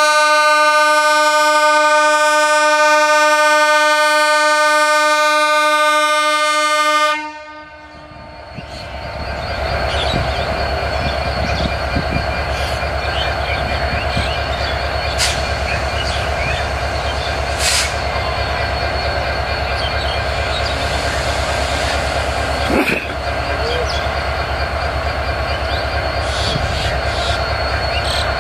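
A diesel locomotive horn sounds one long steady blast for about seven seconds and then cuts off. The locomotive's engine then runs with a steady low throb that builds up as the train starts to pull out.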